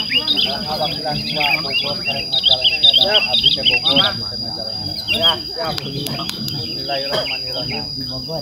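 A dense chatter of bird calls, quick rising-and-falling chirps that thin out after about four seconds, over a steady high-pitched insect drone.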